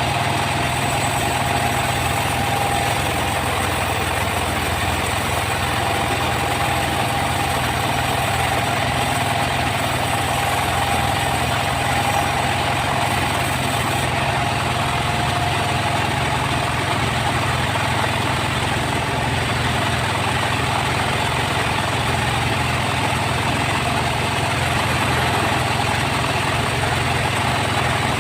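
Engine-driven sawmill running steadily: a constant engine drone with a steady whine above it.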